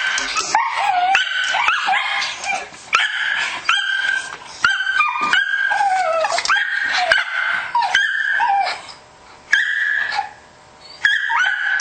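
A dog howling and yipping in a long run of high, whining calls, many sliding down in pitch at their ends, with two brief pauses about nine and ten seconds in.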